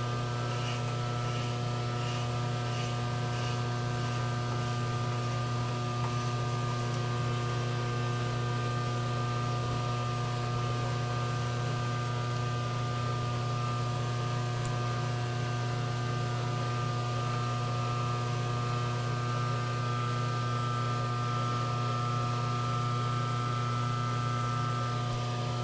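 Electric motor of shop machinery running steadily: a low hum with several steady higher tones over it, unchanging throughout.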